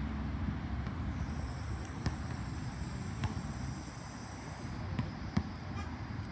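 A few separate sharp knocks of a basketball on a hard court, the loudest about five and a half seconds in, over a steady low rumble.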